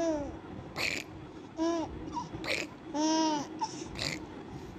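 Baby cooing and babbling: about four short coos, each rising and falling in pitch, roughly every second and a half, with short breathy sounds in between.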